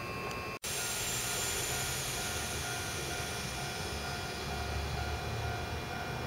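Keikyu electric trains on the depot tracks: a steady electrical whine over a low rumble that swells in the second half as a train rolls slowly closer. A brief drop-out about half a second in.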